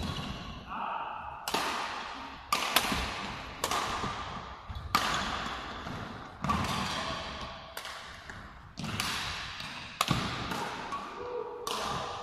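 Badminton rackets striking a shuttlecock in a fast doubles rally: sharp cracks come about once a second, sometimes two in quick succession, each echoing in a large sports hall.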